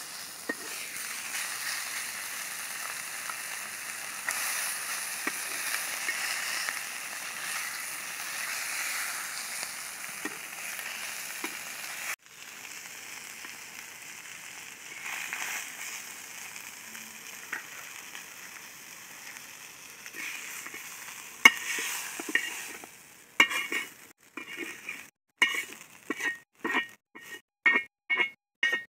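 Murrel fish frying in oil on a flat iron pan: a steady sizzle, with a metal spatula scraping and turning the pieces. In the last several seconds the sizzle fades and the spatula knocks sharply against the pan about twice a second.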